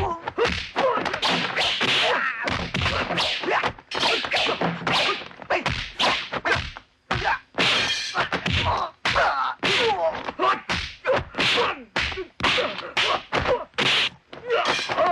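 Kung fu film fight sound effects: a fast, unbroken run of punch and block whacks and thuds, about three a second, with a few shouts from the fighters between them.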